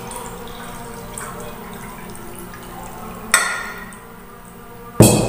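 A man drinking water from a glass mug, with quiet swallowing and liquid sounds. A sharp click comes about three seconds in, and a loud thump near the end.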